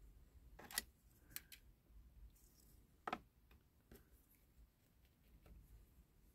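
A few faint, short clicks and light taps of small tools and metal parts being handled on a bench, the two sharpest about a second in and about three seconds in.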